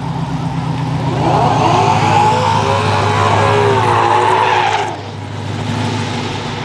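Drag car doing a burnout: the engine idles, then revs up and holds high for about three and a half seconds with the tyres squealing, and drops off suddenly near five seconds in, back to a low rumble.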